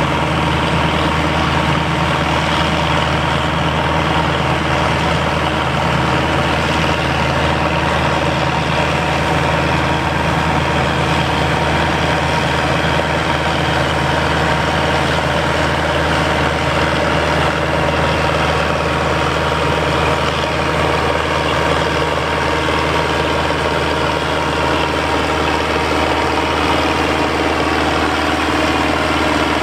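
A 70-horsepower John Deere 3020 tractor engine running steadily under load, pulling and PTO-driving a John Deere 9501 pull-type combine that is harvesting wheat, with the combine's threshing machinery running along with it.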